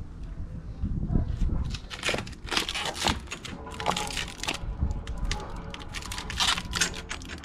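Crinkling and rustling of packaging being handled, with scattered irregular clicks and knocks.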